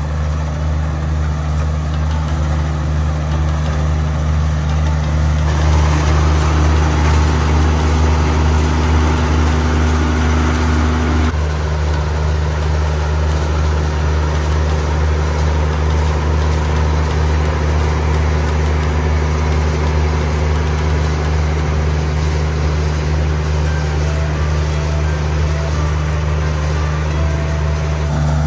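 Kubota KALWEY KR220 two-row combine harvester running steadily while it cuts and threshes rice, a constant engine note with the machine's working whirr over it. Its tone shifts slightly about six and twelve seconds in.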